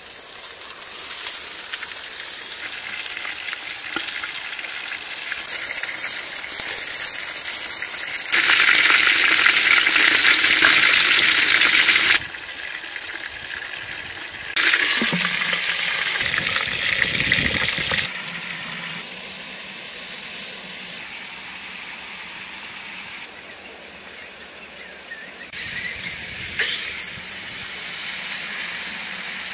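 Water boiling and steaming in a cooking pot over a wood fire. The noise jumps much louder for a few seconds twice, about a third of the way in and again about halfway, each time starting and stopping abruptly.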